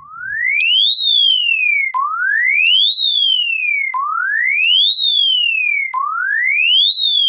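Electronic siren tone of an emergency alert. A single clear, loud tone rises for about a second and falls for about a second, then jumps back down with a small click and starts again, repeating every two seconds.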